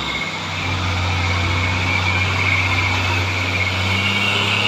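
Diesel engine of a Mitsubishi Fuso flatbed truck hauling an excavator, running steadily as the truck drives slowly past. A low, even drone that grows louder about half a second in.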